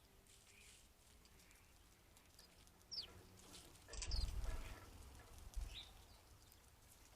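Short bird calls: a quick downward-sliding chirp about three seconds in, another about a second later, and a faint short note near the end. A brief low rumble comes with the second call and is the loudest sound.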